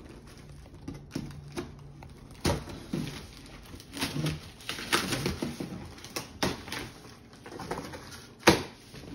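Scattered knocks, clicks and rustles of hard-shell luggage being handled and unpacked, with one sharp, loud knock near the end.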